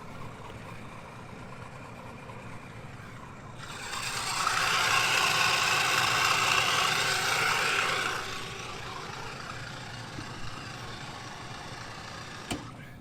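Belt-driven HVAC blower running steadily, its drive belt sounding rough, typical of a worn belt. About four seconds in, a louder rushing noise swells for about four seconds, then fades back to the steady run.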